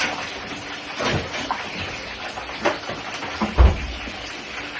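Fish and sausage frying in hot oil, a steady sizzle, with a few knocks, the loudest a low thump a little over three and a half seconds in.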